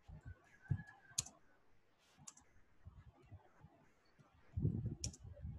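Faint typing on a laptop keyboard: irregular keystroke clicks and soft thumps as a line of text is typed, coming thicker near the end.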